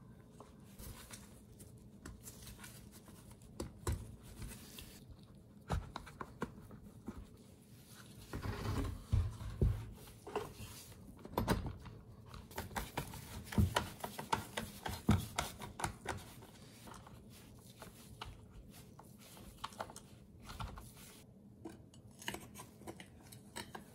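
Hands working on a Homelite Super 2 chainsaw: scattered clicks, taps and rubbing of its plastic housing and small metal parts against each other and the wooden workbench, with a run of louder knocks in the middle.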